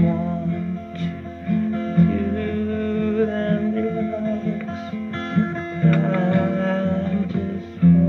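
Music: a song with guitar playing.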